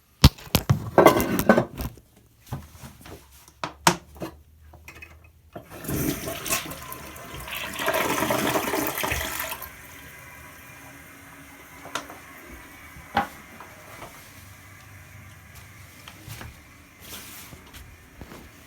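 Glacier Bay dual-flush toilet being flushed: a burst of noise and several knocks, then a loud rush of water lasting about four seconds, followed by the tank refilling with a steady hiss.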